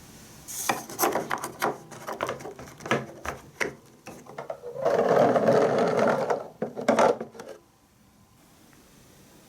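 Marbles rolling and clacking down plastic TrixTrack marble-run wave slopes: a string of quick clicks and knocks, then a dense rolling clatter for about a second and a half, a few last knocks, and the track falls quiet.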